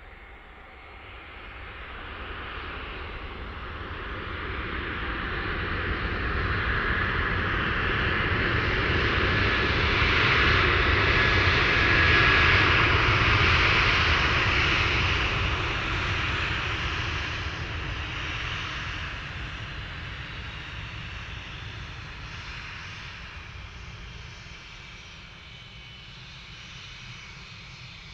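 Airbus A320 jet airliner rolling out along the runway after touchdown, its engines' noise growing to a peak about halfway through, with a faint high whine, then fading as the aircraft passes and slows.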